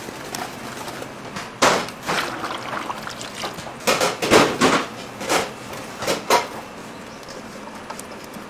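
Wire balloon whisk beating a runny mixture in a large stainless steel bowl: irregular clinks and scrapes of the wires against the metal, in short clusters, loudest a little past the middle.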